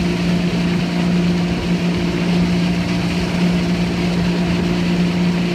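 Tow boat's engine running steadily at speed, a constant drone, under the rush of water and spray from a barefoot skier skimming alongside.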